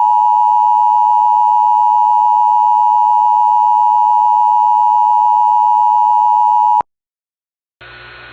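Emergency Alert System attention signal: a loud, steady electronic tone that heralds a severe thunderstorm warning, cutting off suddenly shortly before the end. After about a second of silence, a faint steady radio hiss begins.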